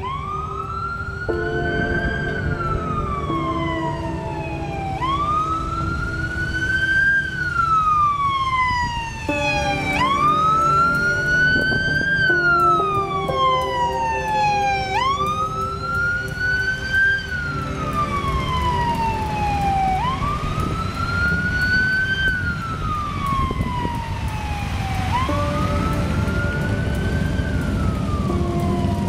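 An emergency-vehicle siren wailing, rising and falling slowly about every five seconds, over the rumble of passing vehicles.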